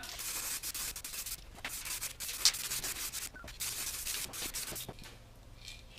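Aerosol can of etch primer spraying in several short hisses, stopping about five seconds in.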